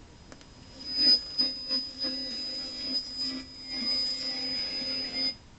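Homemade transistor shortwave receiver's speaker output as it is tuned between broadcast stations. A steady high-pitched whistle sits over garbled lower sound and static, coming up about a second in and cutting out briefly near the end.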